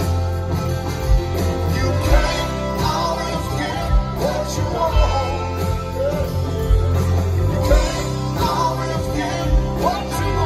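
Live rock band playing a slow, steady groove: electric and acoustic guitars over a heavy bass line, with a kick drum about once a second.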